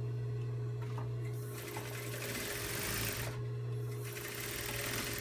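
Industrial sewing machine stitching a seam in two runs of a second or two each, with a short stop between them, over a steady low hum.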